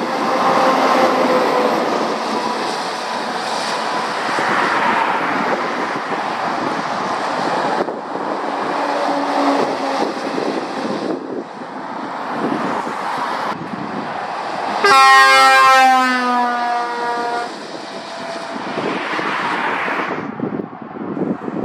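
Heavy lorries driving past one after another, diesel engines and tyre noise swelling and fading. About two-thirds of the way through, a lorry's horn sounds for about two seconds.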